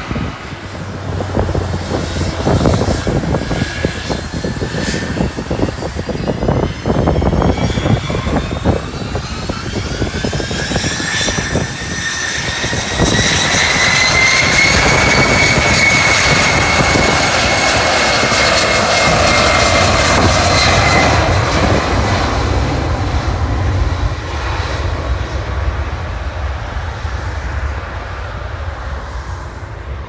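Jet aircraft engines whining, the turbine tone rising over several seconds to a steady high pitch and then fading away, with wind buffeting the microphone.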